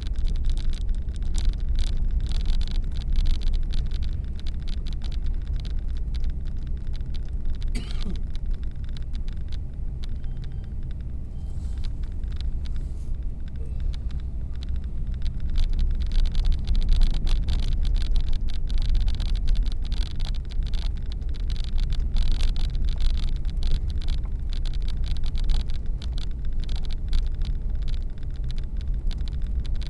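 Car driving, heard from inside the cabin: a steady low engine and tyre rumble with road hiss, and a brief knock about eight seconds in.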